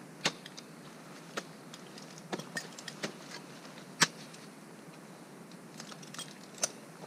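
Ice axe picks striking and biting into frozen waterfall ice: a handful of sharp, irregular chops and clicks. The loudest comes about four seconds in, as a Grivel axe is planted right beside the camera.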